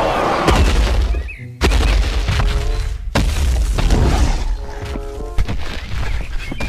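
Dramatic action-film soundtrack: music over deep rumbling booms and crashing impacts, with sudden heavy hits about one and a half and three seconds in.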